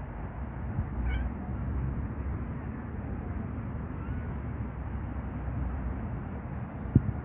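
Street cat meowing, one short rising meow about a second in and a few fainter mews later, over a steady low rumble. A sharp knock near the end.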